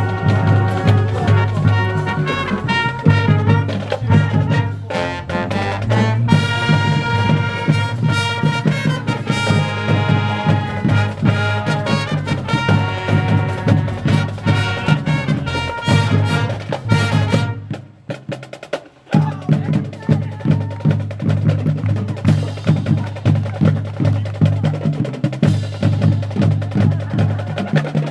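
High school marching band playing: brass winds and drumline together, with a sudden cut-off about two-thirds of the way in, then mostly drums keeping a steady beat.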